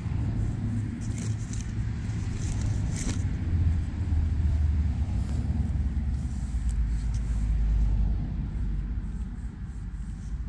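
Low engine rumble whose pitch slowly falls over several seconds, like a motor vehicle going past.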